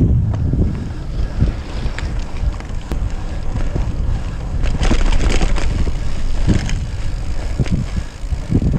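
Wind buffeting the microphone of a handlebar-mounted camera on a bicycle moving at about 18 km/h, with tyre noise and a few knocks from the bike over paving, the loudest about five seconds in.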